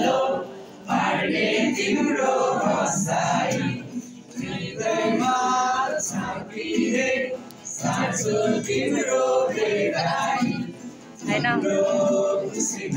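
Two boys singing a song together to a strummed acoustic guitar, phrase after phrase with short breaks between lines.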